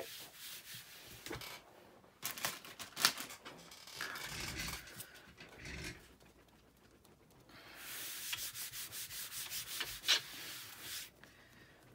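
Brown ink being wiped off a cutting mat: rubbing strokes across the mat's surface in two spells with a short pause between, and a few light taps.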